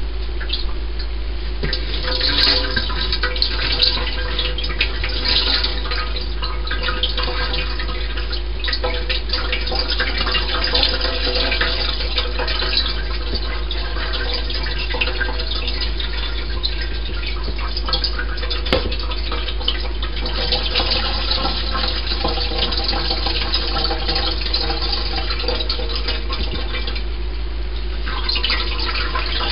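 Fermented corn mash liquid running and splashing steadily through a cheesecloth bag in a colander into the pot below, as the bag of mash is lifted and worked by hand.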